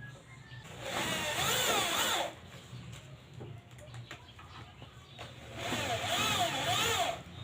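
Cordless drill driving screws to mount a speaker in a wooden box: two short runs of motor whine, each rising and falling in pitch as the screw goes in, about a second in and again near the end.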